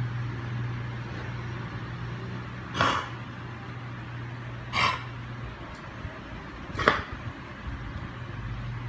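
A dog coughing with a cold: three short coughs about two seconds apart. A steady low hum runs underneath and stops after the second cough.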